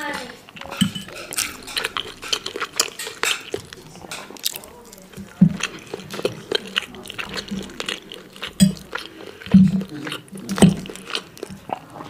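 Close-miked chewing and wet mouth sounds of someone eating a meal of meatloaf, boiled potato and cucumber, with irregular sharp clicks and a few low thuds, and cutlery touching the plate now and then.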